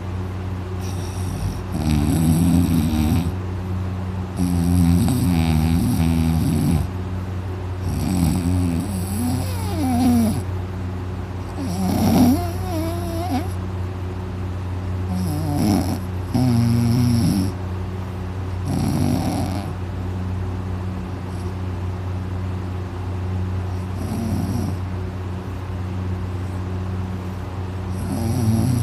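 A person snoring very loud in deep sleep: about eight heavy, rough snores, one every three to four seconds, the later ones weaker.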